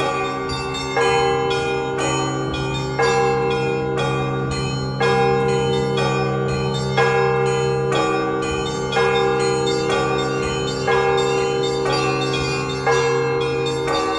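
Orthodox church bells rung by one bell-ringer: a heavier bell struck about every two seconds over quick, rhythmic strokes on the smaller bells, with a low hum holding under them. This is the peal rung at the end of a church service.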